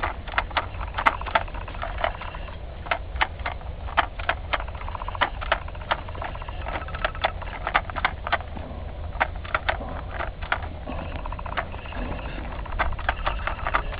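Hand-held vine-tying tool (tapener) clicking and snapping as it is squeezed and worked to tie vine canes to the trellis wire, irregular sharp clicks about two or three a second, over a steady low rumble.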